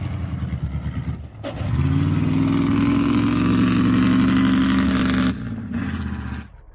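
Ford mud truck's 7.3-litre diesel engine revving up hard under acceleration through its upright stack exhaust. It holds high revs for about three seconds, eases off about five seconds in, and drops away near the end as the truck moves off.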